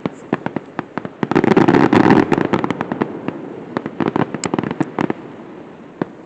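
Fireworks going off: rapid cracks and pops, a dense crackling barrage about a second in, then scattered bangs that thin out and fade.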